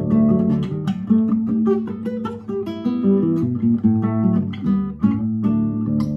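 Solo acoustic guitar playing a fingerpicked piece: a quick run of plucked melody notes over a moving bass line.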